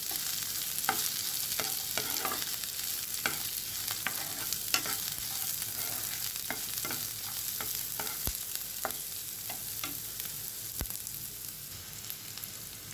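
Chopped vegetables and peanuts sizzling in oil in a non-stick frying pan on low flame, with a spatula stirring and scraping them and tapping irregularly against the pan. The stirring stops near the end, leaving the steady sizzle.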